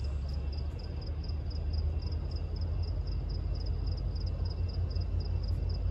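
Crickets chirping in an even rhythm, about four chirps a second, over a steady low rumble.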